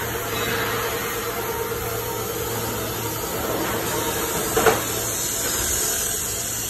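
Steady hum and hiss of machinery on a metal fabrication shop floor, with a single short metallic clank about four and a half seconds in as a large steel pipe section is handled on a steel workbench.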